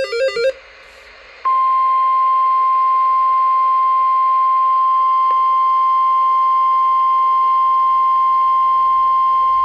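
Emergency Alert System severe thunderstorm warning: the end of a warbling digital SAME header burst lasting about half a second, a short lull, then the NOAA Weather Radio 1050 Hz warning alarm tone starting about a second and a half in and holding as one loud, steady beep.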